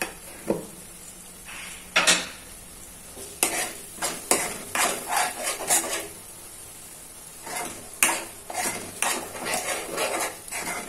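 A steel spoon stirring and scraping thick spiced masala in a non-stick kadai, in bouts of quick strokes with a short pause just after the middle. The masala sizzles in its oil underneath: it is frying until the oil separates, the sign that the masala is cooked.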